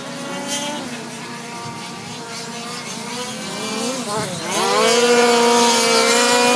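1/5-scale RC race cars' small engines revving up and down on the track. About four and a half seconds in, one engine climbs sharply in pitch and stays loud and high as the car passes close.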